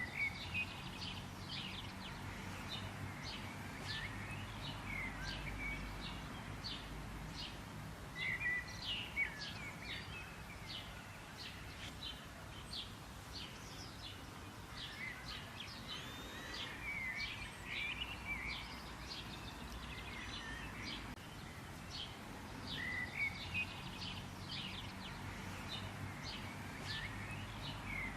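Songbirds chirping and singing: a steady run of short, high chirps, with louder warbled phrases recurring every several seconds, over a low steady background rumble.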